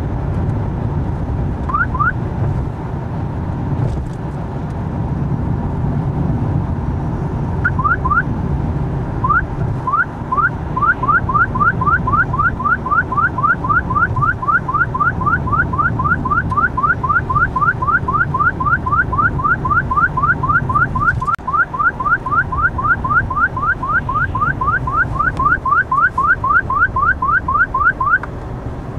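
Stinger DSI radar detector sounding its alert: short rising chirps, a couple of pairs at first, then a steady run of about three a second from about ten seconds in that stops near the end, as it picks up the K-band radar of a Gatso speed camera. Steady car-cabin road noise underneath.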